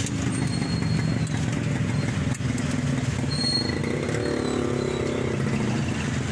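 Engine of a Toyota Corolla 'Big Body' running steadily, a car whose owner complains of hesitation or misfire.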